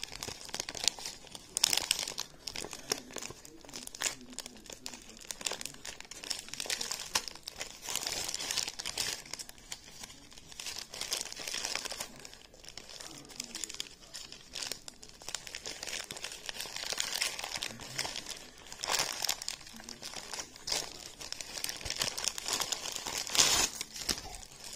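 Plastic packaging crinkling and rustling as it is handled and torn open by hand, irregular, with several louder crackles.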